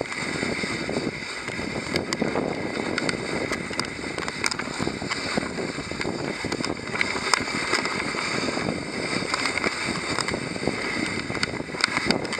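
Dog sled running over a packed snow trail: a steady hiss and scrape of the runners, wind on the microphone, and frequent small clicks and knocks from the sled.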